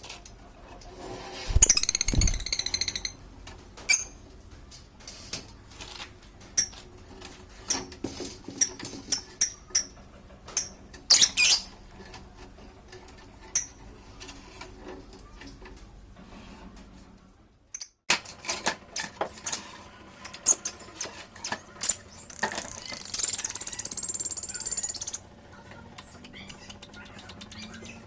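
Repeated knocking and tapping of hand tools on wood, with two stretches of shrill, high-pitched lovebird chirping.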